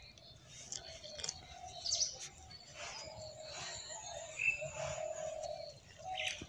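Birds chirping in the background with a low, intermittent cooing, over soft rustling as a hand rubs damp rice flour in a steel bowl.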